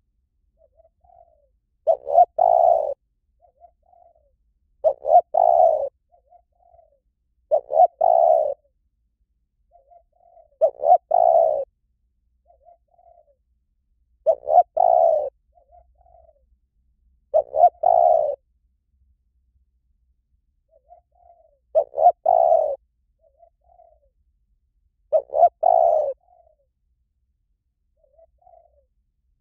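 Spotted dove cooing: eight loud cooing phrases, each about a second long, come roughly every three seconds, with softer short coos between them.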